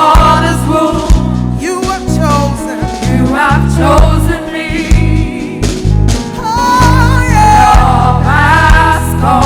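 Gospel worship band playing, with a singer's wavering, ornamented vocal runs over a heavy bass line.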